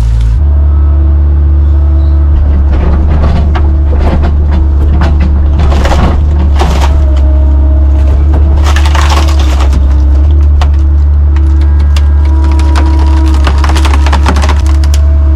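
Excavator engine running steadily under load with a whine from the hydraulics, while wood cracks and splinters in several bursts as the machine breaks through a tree and its branches.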